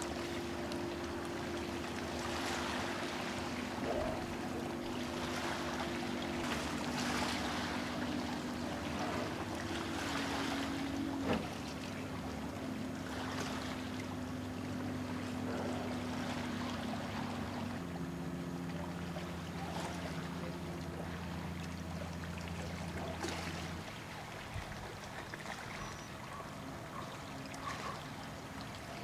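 A steady low motor drone from distant engines, its pitch stepping to new levels a few times, over wind noise on the microphone. There is a single sharp click about eleven seconds in.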